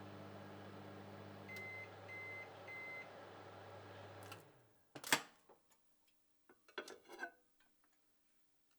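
Microwave oven running with a steady hum, then three short beeps as the cycle ends. The hum winds down and stops. A loud clunk follows about a second later, then a few softer knocks.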